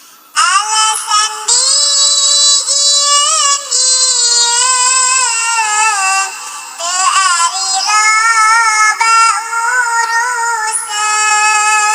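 A high-pitched, edited singing voice chanting a Sundanese nadzom melody in long held, wavering notes, coming in about half a second in after a quiet stretch.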